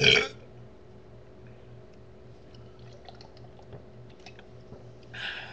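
Faint sips and small wet mouth clicks from someone drinking soda through a sock wrapped over the can, ending with a short breathy sound near the end.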